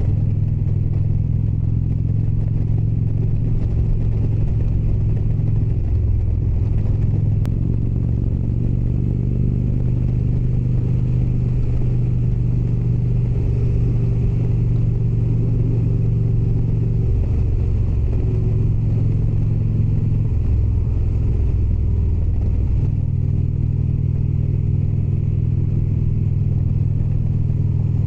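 Indian Springfield motorcycle's V-twin engine running on the road. Its note shifts in pitch several times as the speed changes.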